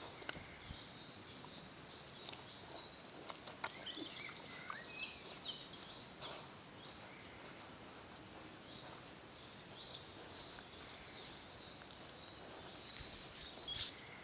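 Bonte Bentheimer piglet rooting in loose, freshly dug soil: faint, scattered crumbling and scuffing of earth under its snout. Small birds chirp in the background.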